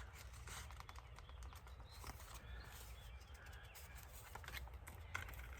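Quiet room with a low steady hum and scattered faint ticks and rustles of paper card being handled.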